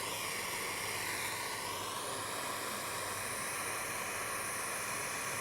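Jeweller's soldering torch flame hissing steadily, heating small silver chain links for soldering.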